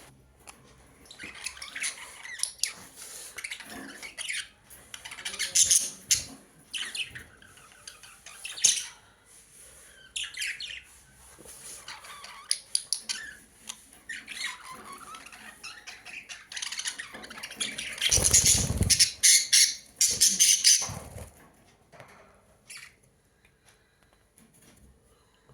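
Birds squawking and chirping in a string of short, sharp calls, with a loud flurry about three-quarters of the way through.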